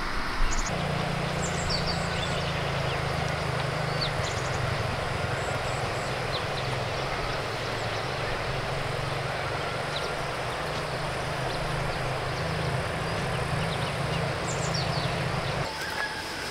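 Steady drone of an engine running at an even speed, which cuts off suddenly near the end. Short high bird chirps are scattered over it.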